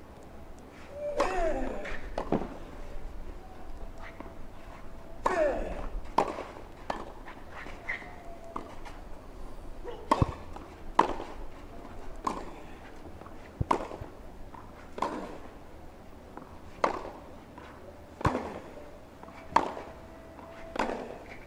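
Tennis rally: a ball struck sharply by racket strings, back and forth about every one and a half seconds. There are two short falling grunts from a player on his strokes, about one and five seconds in.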